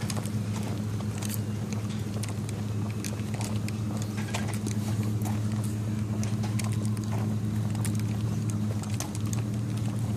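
A vehicle engine idling close by, a steady low hum that does not change. Many short light clicks and ticks come over it throughout.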